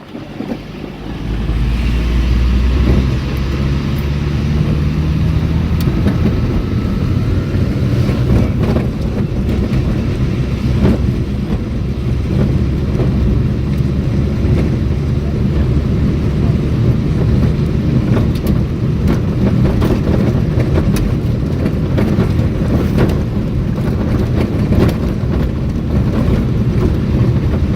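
Vehicle driving: engine and road rumble that swells about a second in, then runs steadily with light rattles.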